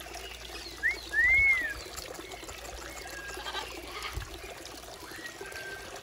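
Water trickling and pouring steadily from the tiers of a small cascading garden fountain into its basin. About a second in, a loud whistle sounds: a short rising note, then a longer note that rises and falls, with a few fainter short whistles later.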